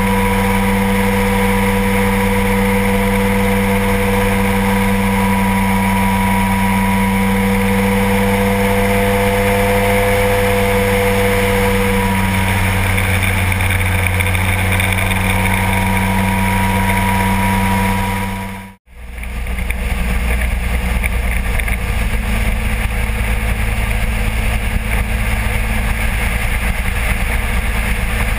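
Kolb ultralight aircraft's engine running steadily in flight, with wind noise over it. The engine note shifts slightly about twelve seconds in, and the sound drops out for a moment about two-thirds of the way through before the engine drone resumes.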